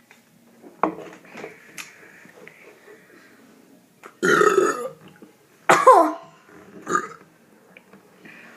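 Deliberate loud burps, forced up after drinking soda: a long one about four seconds in and a shorter one near six seconds that falls in pitch, with a smaller burp just after.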